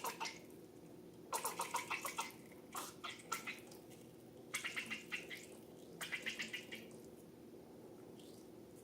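Slime being squeezed and worked by hand, giving four short bursts of rapid crackling squelches over a low steady hum.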